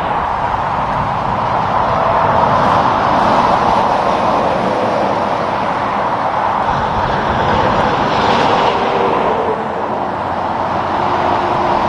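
Highway traffic passing: continuous tyre and engine noise from vehicles on the road, swelling twice as vehicles go by, with a faint engine drone falling slightly in pitch near the end.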